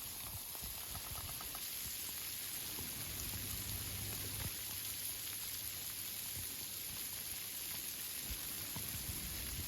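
Steady rain falling on tree foliage: an even hiss of many drops on the leaves.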